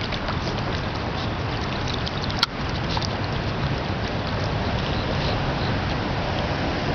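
Steady outdoor background rumble and hiss, with one sharp click about two and a half seconds in.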